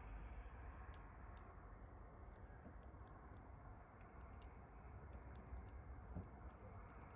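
Red mason bee emerging from its cocoon, chewing at the cocoon wall: faint, sharp, irregular clicks, about two a second, coming more often in the second half.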